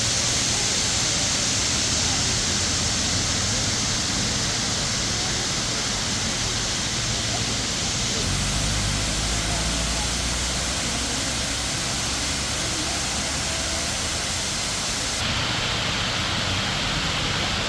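Steady rushing and splashing of a man-made waterfall, full and hissy. The sound shifts abruptly twice, about eight and fifteen seconds in, as the view changes.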